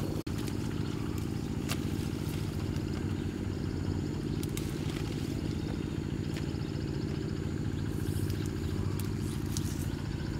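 An engine running steadily at an even speed, with a few faint clicks and rattles over it.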